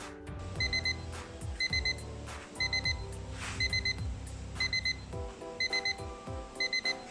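Digital alarm clock's alarm going off: a quick group of high electronic beeps repeating about once a second.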